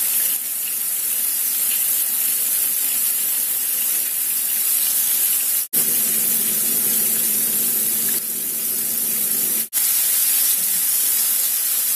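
Flour-coated pieces of liver sizzling in hot oil in a frying pan, a loud steady hiss. The hiss breaks off for an instant twice.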